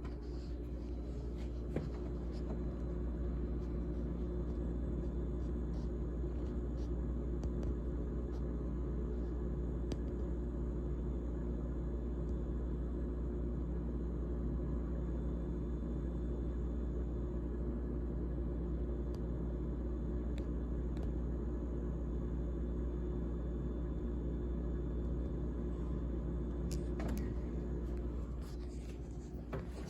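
GE GTH18XCTZRBB refrigerator running with a steady low hum made of several pitched tones over a deep rumble, with a few faint clicks.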